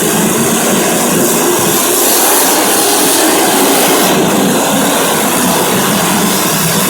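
Several racing engines running at once in a steady, loud, dense drone, their pitches wavering over one another.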